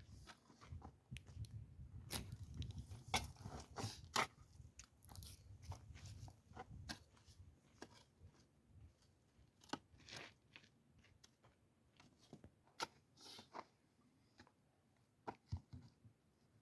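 Irregular crunching and scraping with sharp clicks and knocks, thickest in the first half over a low rumble that fades after about seven seconds, then sparse single clicks.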